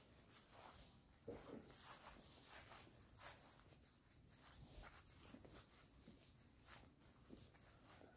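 Faint, soft footsteps walking on a grassy dirt footpath, irregular steps over a very quiet background.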